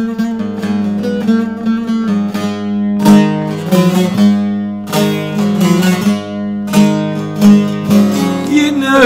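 Instrumental introduction of a Turkish folk song: a plucked string instrument plays a melody over a steady low drone, with several sharply struck notes.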